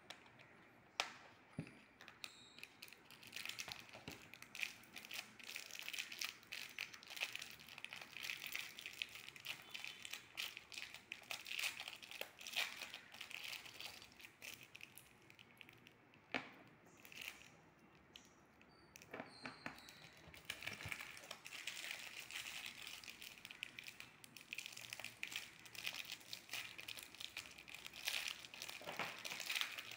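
Thin plastic wrapping crinkling and rustling as it is handled and pulled open by hand, in many short irregular crackles with a few sharper clicks.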